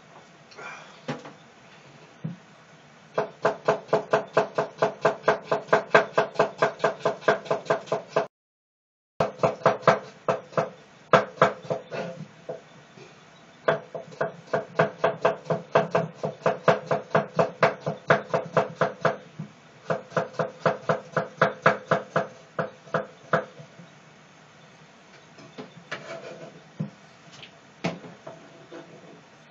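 Kitchen knife slicing a cucumber on a thick wooden cutting board: quick, even chops of about four or five a second, in several runs with short pauses between them and a few scattered knocks near the end.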